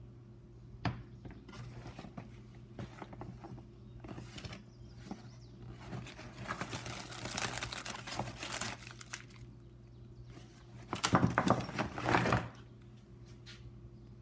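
Cardboard dispenser box of paper-wrapped syringes being opened and rummaged through by hand, the flaps and packaging rustling and crinkling, with a louder burst of rustling about eleven seconds in. A single sharp tap about a second in.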